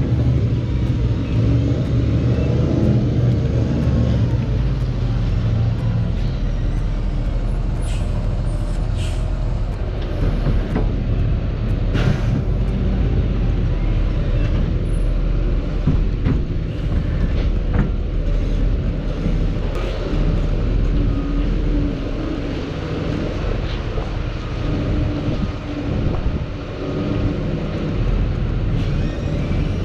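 Heavy goods lorry running, a steady low engine and road rumble, with a few brief clicks.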